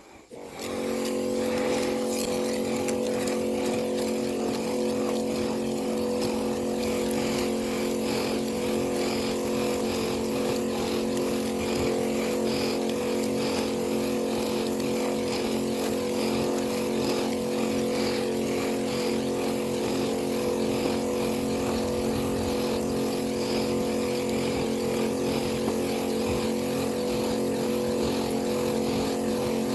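Small engine of a backpack power sprayer running at a steady speed while herbicide is sprayed, coming in about half a second in and holding constant.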